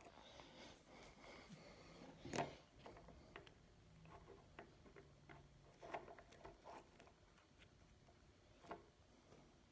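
Faint scattered clicks and taps over near silence, with a sharper knock about two seconds in and a few more later.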